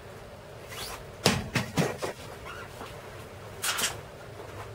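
Savage SVLB48 LED box level dropped from about six feet hitting concrete patio blocks: one sharp clattering impact about a second in, followed by a few quick bounces. Another short knock comes near the end. The level survives the drop.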